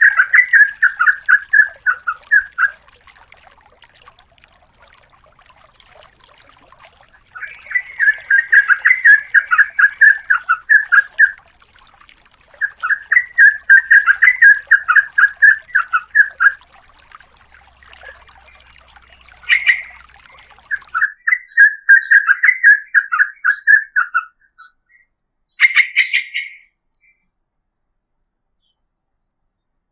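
Yellow-vented bulbul (trucukan) singing long, rapid, bubbling trill phrases of a few seconds each. Four such phrases come with short pauses between them, broken by a couple of brief single notes, and the song stops about three seconds before the end.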